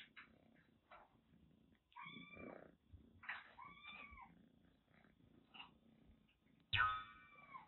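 Orange-and-white kitten meowing three times in short, bending calls, the last one near the end the loudest, with faint scuffing as it rubs against a fabric cushion. These are affectionate, attention-seeking calls.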